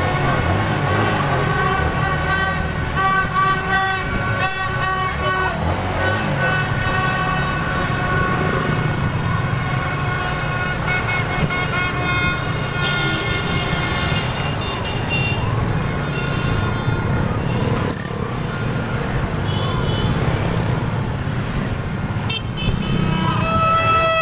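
Many motorbike horns honking at once in overlapping tones, celebratory honking in a street victory ride, over the steady running of motorbike engines and traffic.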